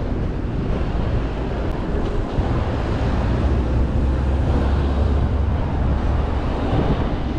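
Wind rumbling on the camera microphone over street traffic noise, the low rumble swelling in the middle.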